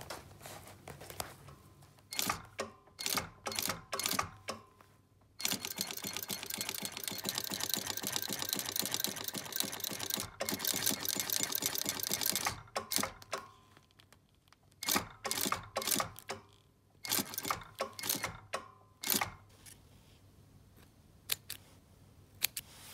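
Industrial sewing machine stitching a zipper onto leather. It goes in several short bursts, then runs steadily for about seven seconds, then stops and starts again in short bursts.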